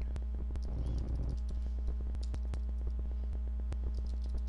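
Computer keyboard typing: quick, irregular key clicks, over a steady low electrical hum, with a brief muffled noise about a second in.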